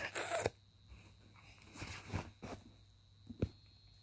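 Faint rustling of bedcovers and handling of a handheld device: a short burst of rustle at the start, then a few soft taps and a single click.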